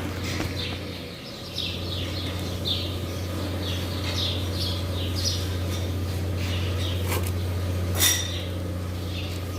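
Birds chirping, short calls repeated about twice a second, over a steady low hum; a single sharp click about eight seconds in.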